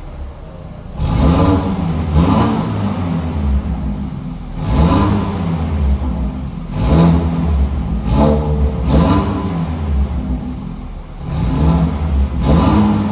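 BMW 428i's turbocharged four-cylinder engine, with its catalytic converter deleted and the stock exhaust kept, revved in repeated short blips, about eight times, each rising and falling in pitch before dropping back to idle.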